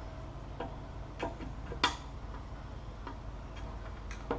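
Scattered light clicks and taps, about half a dozen, the sharpest near the middle: hand work on the levelling screws of a zero-clearance insert in a table saw's throat plate opening.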